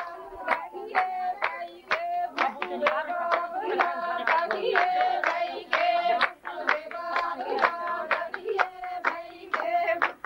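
Women singing Punjabi boliyan while clapping hands in a steady rhythm, about two claps a second, to accompany giddha dancing.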